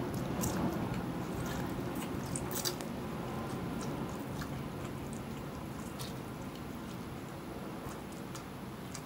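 A person eating a mouthful of spicy instant noodles with chopsticks: chewing and slurping, with short wet mouth clicks scattered through.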